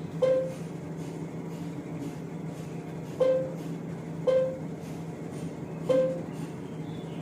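Four short, pluck-like touch-panel beeps from a Samsung Bespoke AI washer-dryer's control screen as settings are tapped. The first comes right at the start, then three more follow about three, four and six seconds in. Under them runs a steady low hum.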